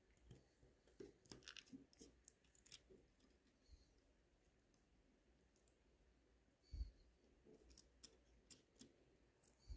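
Near silence broken by faint, scattered small clicks and taps of metal watch parts and tools while the oscillating weight of a Miyota 8215 automatic movement is being fitted, with a soft thump about seven seconds in.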